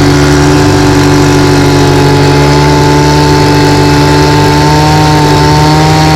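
An engine running loud and steady at a constant speed, with an even, unchanging hum.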